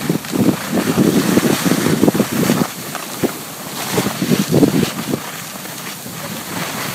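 Wind buffeting the microphone of a camera moving down a ski slope, in irregular gusts, over a steady hiss of sliding on packed snow.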